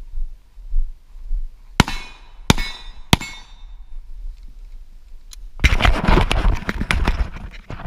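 Three pistol shots about two-thirds of a second apart, each with a short ringing tail. About two seconds later comes a stretch of rustling and knocking as the shooter moves through the grass behind the barricade.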